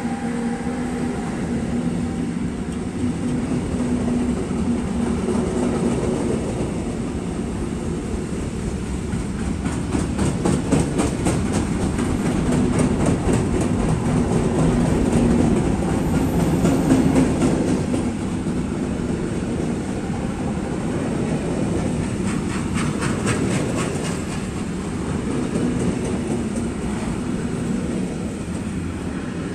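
Freight train of covered sliding-wall wagons rolling past: a steady rumble of wheels on rail, with stretches of rapid clickety-clack as the wheelsets cross rail joints, about a third of the way in and again about three-quarters of the way in.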